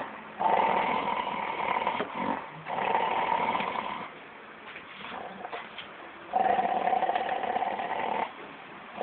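A Dalmatian growling at someone in three long, steady-pitched grumbles, the last one the longest, with short pauses between them.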